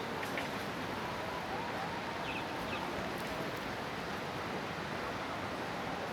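Steady rush of surf washing on a beach, with faint distant voices or chirps in the background.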